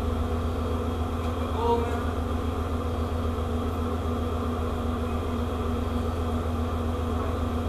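Steady low hum of a ship's onboard machinery, an unchanging drone with a fainter steady tone above it.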